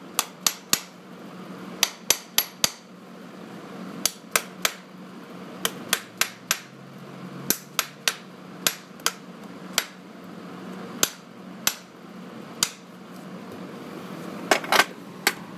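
Farrier's hammer striking metal in sharp, short blows, in irregular runs of two to four, with pauses between.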